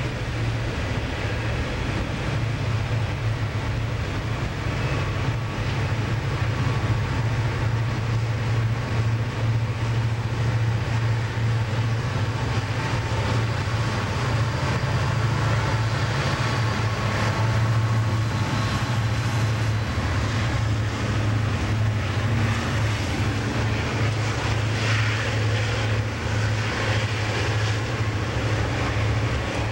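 Norfolk Southern diesel-electric locomotives passing with a train of hopper cars, their engines making a loud, steady low drone.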